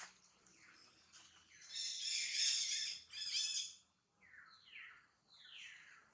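High-pitched animal calls: two loud, harsh, screechy bursts about two seconds in, then a run of short calls that each fall steeply in pitch, repeated about every two-thirds of a second.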